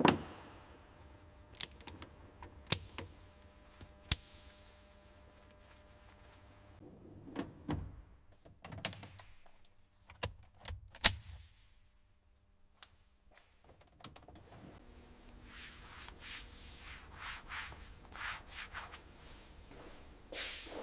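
Hand work on metal truck parts: scattered sharp metallic clicks and knocks, then, a little past the middle, a run of soft rubbing strokes about two a second.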